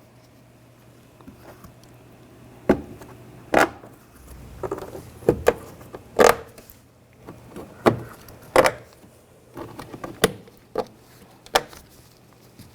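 Plastic push pins being pressed home into a pickup's door trim panel, each seating with a sharp knock, about ten in all at uneven intervals.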